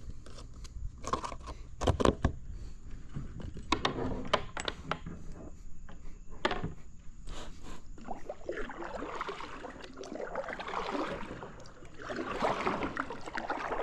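Knocks, clicks and scrapes of fishing gear handled aboard a kayak, followed from about eight seconds in by a longer, rougher rustling.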